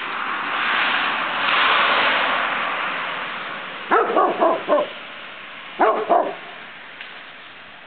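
A dog barking in play, in two quick bursts: four short barks about four seconds in, then three more about two seconds later. Before the barks, a loud rushing noise fills the first three seconds or so.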